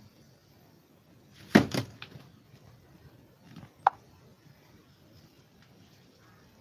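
Two quick knocks close together about one and a half seconds in, then a single sharp click with a brief ring about four seconds in, over faint room noise.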